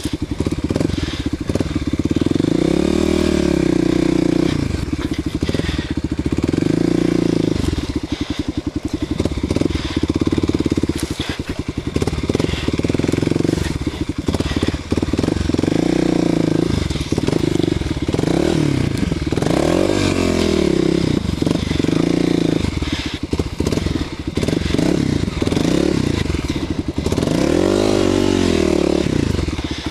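Kawasaki KLX250SF's single-cylinder four-stroke engine running at low speed, its revs rising and falling in short bursts about seven times as the throttle is worked through thick brush. Branches and undergrowth crackle and scrape against the bike throughout.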